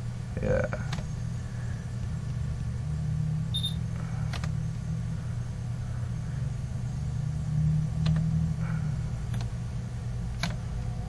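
A few sharp computer mouse clicks, about five spread over the stretch, over a steady low hum. There is a short high beep about four seconds in.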